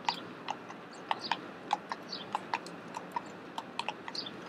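Carriage horse's hooves clip-clopping at a walk on a paved road: sharp, separate hoofbeats, often in pairs, about three a second.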